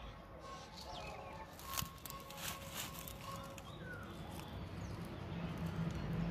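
Quiet outdoor ambience with a few light clicks and taps from hands handling flowers and offerings, and a short bird chirp a little past the middle. A low rumble grows near the end.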